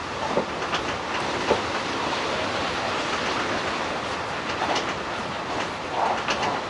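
Hanshin 1000 series electric train running along the line, a steady rumble of wheels on rails with occasional irregular clicks.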